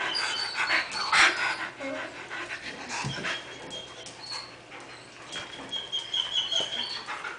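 Two dogs at play, panting and scuffling. A sharp noise comes about a second in, and there are a few thin high whines, the longest lasting over a second near the end.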